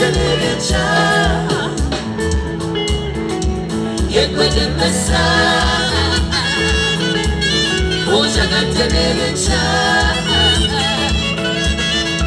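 Live band music with voices singing in phrases over a steady beat and bass line.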